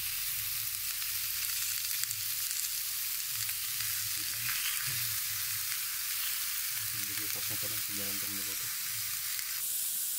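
Hot dogs and napa cabbage sizzling steadily on a round stovetop grill pan.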